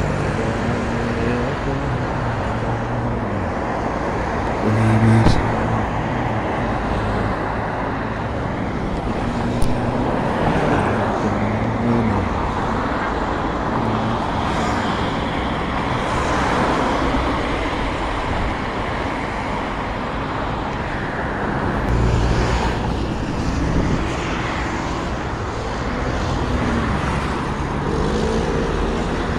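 Steady road traffic: passing car and motor engines over a constant background rumble, with a louder vehicle going by about five seconds in and again around twenty-two seconds, and a short sharp click near ten seconds.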